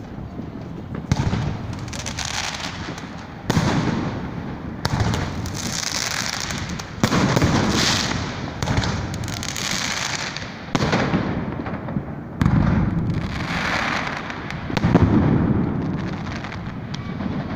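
Aerial fireworks bursting overhead: about seven loud booms spaced a second or two apart, each trailing off into long crackling, with smaller pops in between.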